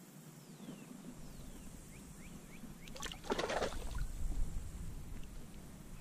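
Water sloshing and splashing around a float tube, with a louder splash about three seconds in.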